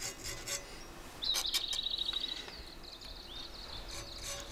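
A spatula scraping and smearing clay paste along a katana blade in soft rubbing strokes, laying on the clay coat for hardening. From about a second in, a high, fast trilling call sounds over it, loudest for its first second and fading over the next two.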